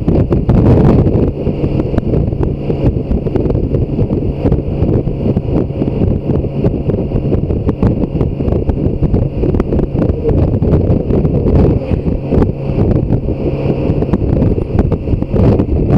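Heavy wind buffeting on the microphone of a BMW K1600 GTL motorcycle riding at road speed, with the bike's inline-six engine humming steadily underneath. An oncoming motorhome swishes past near the end.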